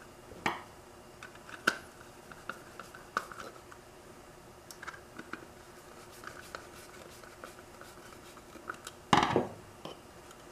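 Small screws being driven by hand with a screwdriver into the plastic cover of a GM cruise control vacuum servo actuator: faint clicks and scratchy ticks as the screwdriver turns. A louder knock comes near the end as the unit is handled.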